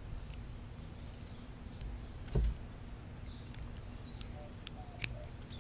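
Scissors snipping the tails off small plastic zip ties: a few faint sharp clicks, with one duller knock about two and a half seconds in, over a quiet background with faint chirps.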